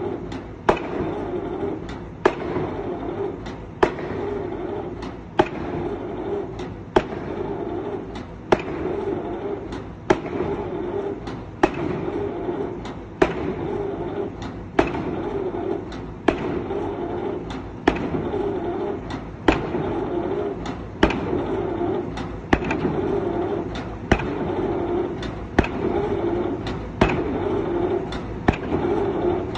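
Excavator-mounted drop hammer striking over and over in an even rhythm, one sharp bang about every second and a half, over the steady running of the excavator's engine.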